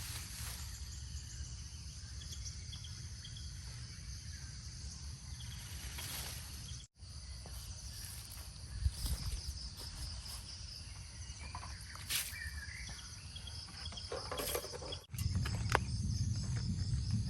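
Insects chirring and chirping steadily over a low rumble, with a few single clicks; the sound drops out abruptly twice, and after the second drop-out the low rumble is louder.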